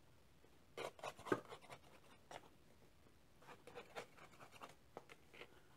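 Back of a table knife scraping around the rim of a metal pie plate, trimming off overhanging pastry. Faint, scattered short scrapes and light taps, a cluster about a second in and more through the second half.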